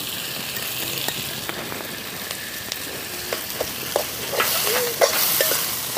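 Onions, tomato and dried red chillies sizzling in oil in an aluminium kadai while a steel spoon stirs and scrapes against the pan. About four seconds in, the scraping gets louder and busier, with a few short squeaks of metal on metal.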